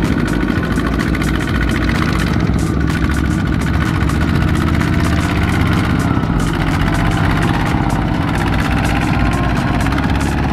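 Two-wheel walking tractor's single-cylinder diesel engine running steadily under load with fast, even firing beats, as it pulls a trailer of rice sacks through deep mud.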